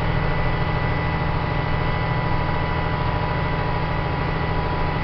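Old Mack truck driving along a dirt road, heard from inside the cab: a steady low engine drone with road noise.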